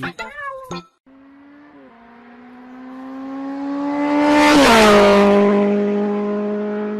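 A car passing at speed: its engine note grows louder as it approaches, peaks with a rush of tyre and wind noise about two thirds of the way in, and drops in pitch as it goes by.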